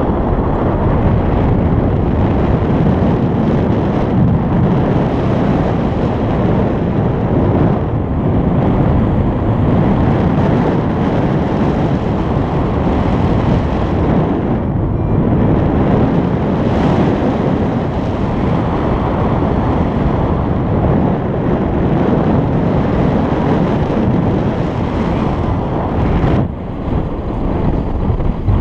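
Steady wind noise from airflow rushing over an action camera's microphone in paraglider flight, dipping briefly near the end.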